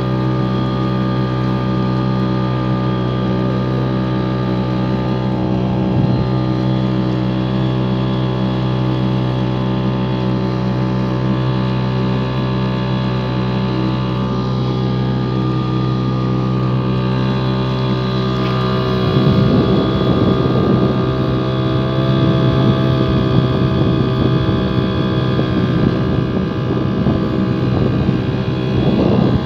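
Motorboat engine running at a steady pitch. From about 19 seconds in, a loud, rough rushing noise joins it.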